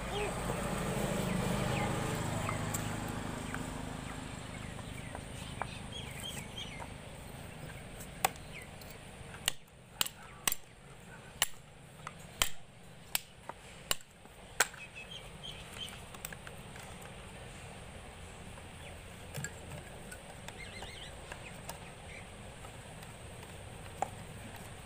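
Handling noise from reassembling a small domestic water pump motor: a run of about ten sharp clicks and knocks in the middle as the plastic terminal box cover is worked back onto the motor body. A low rumble fills the first few seconds, and birds chirp faintly.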